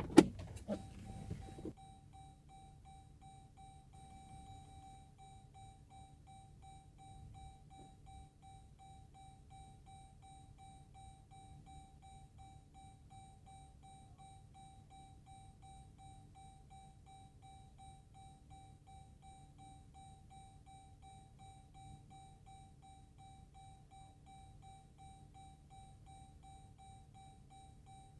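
A thud right at the start. Then a vehicle's electronic warning chime beeps steadily and rapidly, with a faint low hum beneath.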